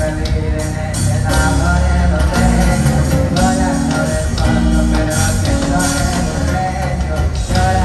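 Loud live band music over a concert PA: a tuba carries a stepping bass line under guitars and singing.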